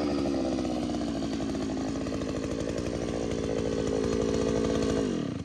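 The 82cc petrol engine of a Takyo TK3P push-type earth auger running steadily at speed. Its pitch falls and the sound dies away right at the end.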